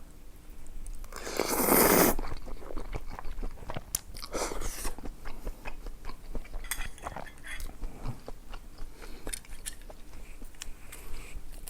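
Eating sounds: a loud, noisy burst of biting or slurping about a second in, then steady chewing with many small clicks and brief crunches.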